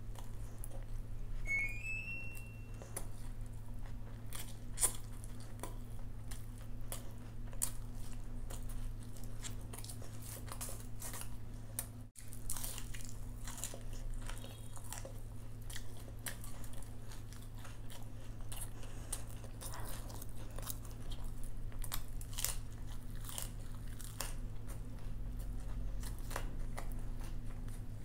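A person eating crunchy fried Indian food by hand, close to the microphone. A run of crisp crunches and chewing clicks sounds over a low steady hum, with a brief cut-out about twelve seconds in.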